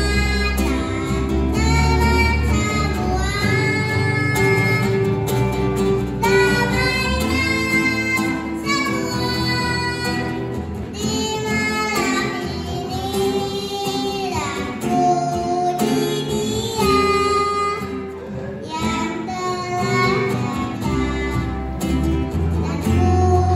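A young boy singing an Indonesian Christmas song into a microphone, with instrumental accompaniment including guitar.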